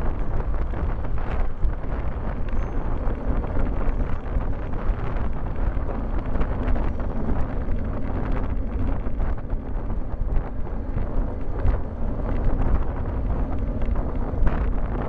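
Steady wind noise buffeting a bike-mounted camera's microphone on a road bicycle riding at about 35–40 km/h, mixed with tyre and road noise, with small knocks now and then from bumps in the road.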